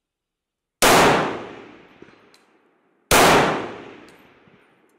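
Two shots from a French MAS 49/56 semi-automatic rifle in 7.5×54mm French, a little over two seconds apart. Each sharp report trails off in an echo over about a second and a half.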